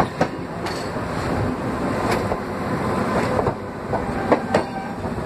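BHEL-built EMU suburban train cars rolling past at close range: a steady rolling rumble, with the wheels clicking sharply over rail joints every second or so at uneven spacing.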